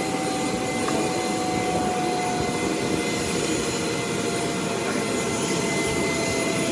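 Small gas-turbine auxiliary power unit running steadily, supplying start air for a Concorde Olympus 593 engine: a dense rush with a high whine whose main tone drifts slowly down.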